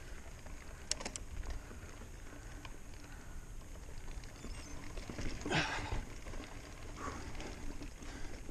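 Mountain bike being ridden up a dirt forest singletrack: a steady low rumble with a few sharp rattling clicks about a second in and a brief rush of noise a little past the middle.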